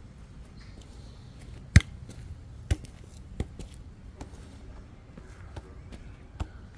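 A basketball bouncing on a packed-dirt path: a handful of irregularly spaced thuds, the loudest about two seconds in, with a few fainter ones after.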